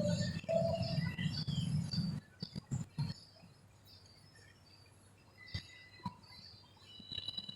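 Birds chirping in the background over a low rumble that cuts off about two seconds in, leaving a quieter stretch with a few soft clicks and more short chirps near the end.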